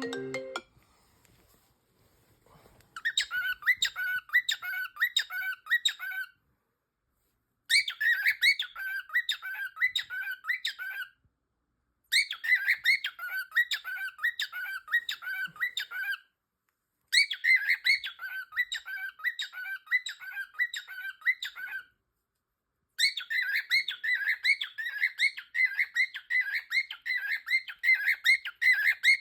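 A parrot squawking in quick repeated calls, about three a second, starting about three seconds in and going in five bouts of a few seconds each with short breaks between.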